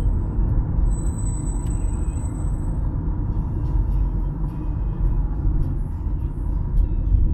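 Low, steady rumble of a car driving slowly in city traffic, heard from inside the cabin. About a second in, a thin high whine sounds for about two seconds.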